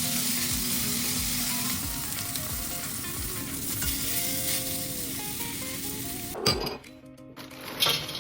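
Steak sizzling as it fries in a hot pan. About six and a half seconds in there is a loud knock, the sizzle then drops away, and a sharp clatter follows near the end.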